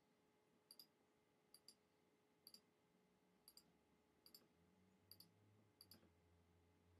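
Faint iPhone on-screen keyboard clicks as a name is typed letter by letter, about one keystroke a second, each a short sharp tick.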